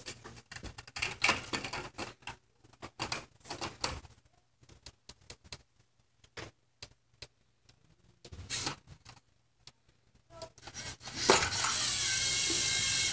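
Lego robot parts clicking and clacking as they are handled and fitted, in scattered sharp taps with a quieter stretch in the middle. About eleven seconds in, a louder steady sound with a held pitch starts and lasts to the end.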